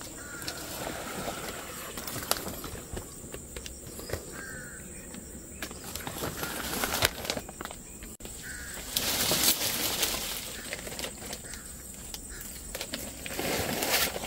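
Rustling and crinkling of a mesh fruit-protection bag and the surrounding leaves as it is pulled over a jackfruit on the tree, in irregular bursts with small clicks, the loudest stretch about two-thirds of the way in. Short bird chirps come through a few times over a steady high insect drone.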